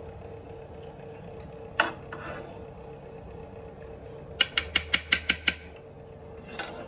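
A spoon knocking against a non-stick frying pan to clear the mixture off it: one knock, then a quick run of about eight sharp taps.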